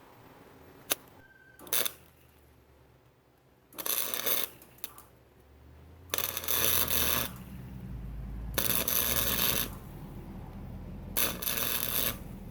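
Arc welder laying short tack welds on a steel steering shaft: four crackling bursts of about a second each, with a sharp click and a brief burst before them, and a low hum coming in partway through.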